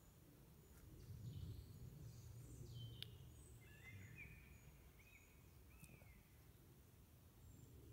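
Near silence with faint wild birds calling: several short chirps and whistled notes over a low background rumble.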